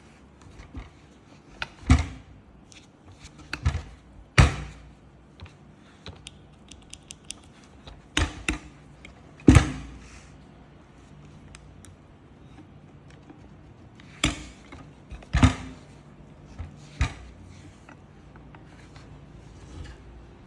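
Irregular sharp clicks and knocks of hard objects being handled and set down, about a dozen of them, with the loudest about 2, 4.5, 9.5 and 15.5 seconds in. No motor is running.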